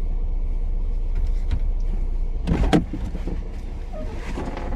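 Off-road vehicle's engine idling with a steady low rumble, with a brief clatter about two and a half seconds in.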